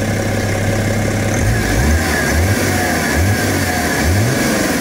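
BMW 535d's twin-turbo three-litre straight-six diesel, tuned to about 400 hp, idling and then revved in several short throttle blips, about one a second, from about a second and a half in.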